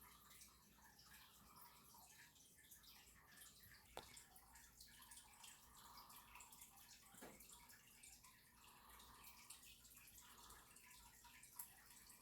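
Near silence: faint room tone with a couple of soft clicks.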